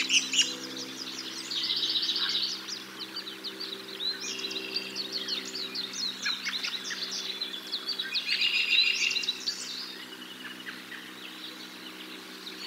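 Several small songbirds singing and chirping over one another, with quick downslurred chips and fast trilled phrases, the trills loudest about two seconds in and again about nine seconds in. A faint steady low hum runs underneath.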